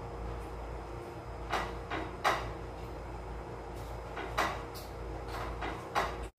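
Someone eating by hand from a plate: a few short, sharp clicks and smacks spaced a second or two apart over a steady low hum.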